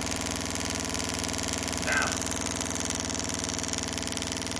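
HEI distributor ignition test rig running at a raised speed, its spark plugs firing in a rapid, even ticking that holds steady throughout. A brief higher sound cuts in about two seconds in.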